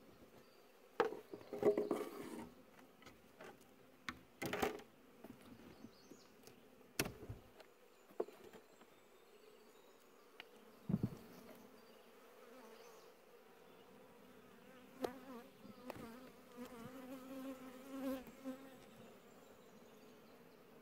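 Honey bees buzzing around an open hive, their hum wavering in pitch as bees fly close by. Now and then come sharp knocks and scrapes of wooden hive frames and boxes being handled.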